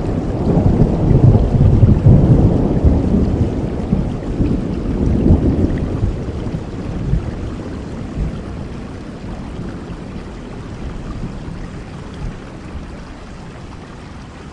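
Steady rain with a long roll of thunder: the low rumble is loudest over the first couple of seconds, swells again about five seconds in, then dies away, leaving the rain alone.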